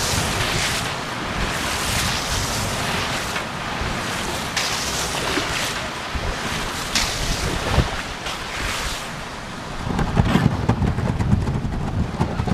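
Kayak paddle strokes in the water, the splashing wash swelling with each stroke, with a single knock about two-thirds of the way through. Wind buffets the microphone in the last couple of seconds.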